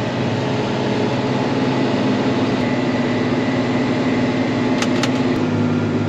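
John Deere 9570 RX tractor's diesel engine running steadily under load, heard from inside the cab while driving across the field, with two light clicks near the end.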